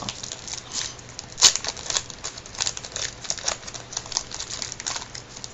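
Baseball cards and their foil packs being handled: a run of quick, irregular clicks and crinkles, with one sharper snap about a second and a half in.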